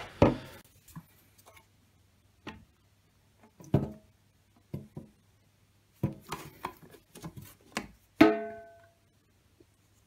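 A plastic drain pipe and U-bend trap knocking and clattering against a stainless steel sink in several separate knocks. The loudest, about eight seconds in, leaves the metal sink ringing briefly.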